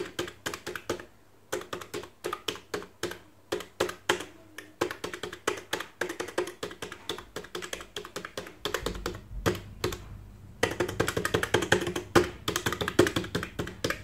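Keys of a slim 18-key wireless numeric keypad being pressed in quick, irregular runs of clicks, with a short pause about a second in and a quieter spell near ten seconds.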